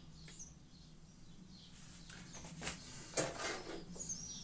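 A sliding wooden shelf loaded with a bench drill press is pulled out of its cupboard, giving a short run of scraping and knocking with one sharp knock a little past three seconds in. Faint bird chirps sound near the start and the end.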